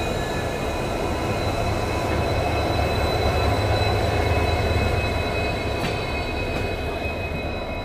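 Diesel train passing with a steady low engine rumble over rail noise, from the two EMD WDG4 diesel locomotives banking at the rear, pushing the train up the ghat gradient.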